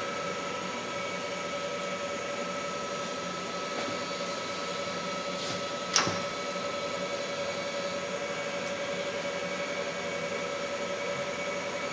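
Industrial robot arm's servo motors running with a steady electric whine of several fixed tones as the arm moves in to grip a plastic box, with one sharp click about six seconds in.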